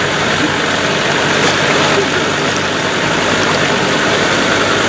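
Land Rover Defender 110's Td5 five-cylinder turbodiesel engine running steadily at low revs as the truck crawls through deep muddy water.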